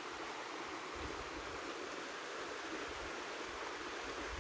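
A forest stream rushing over rocks: a steady, even hiss of running water, with an uneven low rumble of wind on the microphone underneath.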